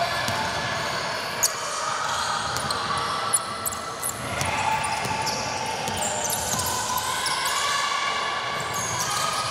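Basketball game on a hard indoor court: a ball bouncing, with two sharp thuds about one and a half and three and a half seconds in, over a steady background of players' and spectators' voices and short high squeaks.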